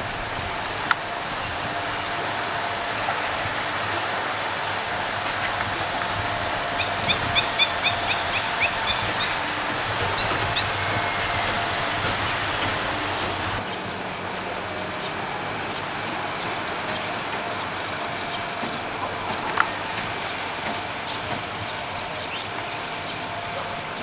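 Steady rush of falling water, with a bird's quick trill of about a dozen notes about a third of the way in.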